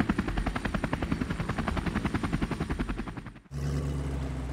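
Helicopter rotor sound effect: rapid, evenly spaced chopping beats that fade and cut off about three and a half seconds in, followed by a steady low drone.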